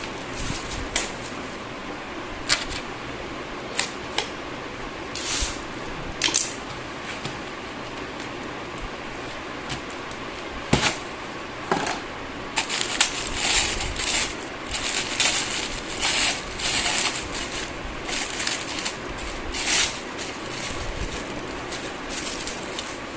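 Firecracker pack being unwrapped by hand: wrapping rustling and crinkling, with scattered clicks and taps. The crinkling comes thickest in the second half.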